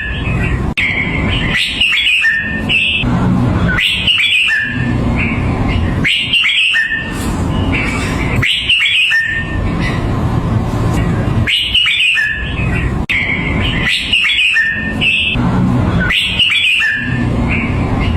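Red-whiskered bulbul singing short, bright whistled phrases, repeated about every two seconds, over a steady low rumble.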